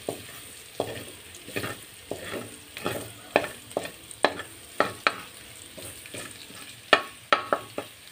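Spatula scraping and knocking against a wok, about twice a second, as it stirs minced garlic. Under the strokes, the garlic sizzles steadily in hot oil as it sautés.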